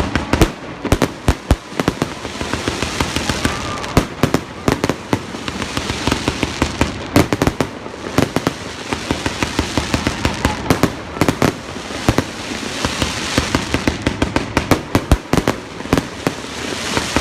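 Aerial fireworks display: a rapid, continuous barrage of bangs and crackling shell bursts, many reports per second with no pause.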